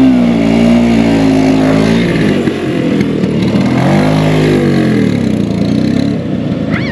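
Bajaj scooter's two-stroke engine revved hard twice, its pitch rising and falling each time, as the rider tries to drive the rear wheel out of a hole in the riverbed where it is stuck. Near the end it drops back to a fast idle.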